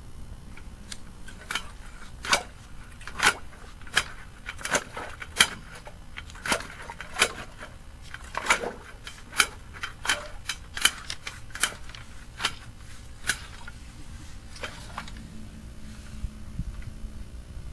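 Sharp, irregular clicks and knocks, about one or two a second, that stop about three-quarters of the way through, from a sewer inspection camera's push cable being worked by hand through the line.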